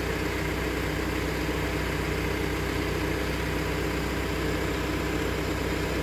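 Genie GTH-5519 telehandler's diesel engine running steadily at idle.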